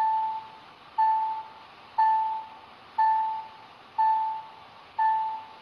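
A car's warning chime: a single ringing tone that repeats about once a second, each ring fading out quickly, six times.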